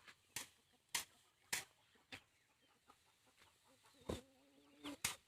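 Rice sheaves being beaten by hand to thresh the paddy: four sharp thwacks about half a second apart, then a fainter one. Near the end comes a short, low held call.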